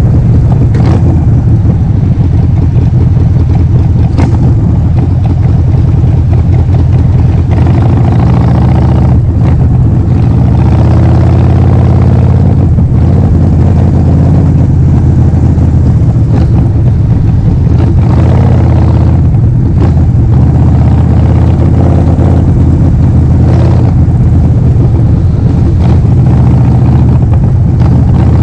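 Harley-Davidson Forty-Eight's 1200 cc V-twin running loud through a Vance & Hines full exhaust system, its note shifting a little with the throttle.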